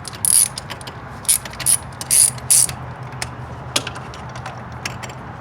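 Hand ratchet on a spark plug socket and wobble extension clicking in several short bursts of rapid clicks, then a few single clicks, as a spark plug is turned out.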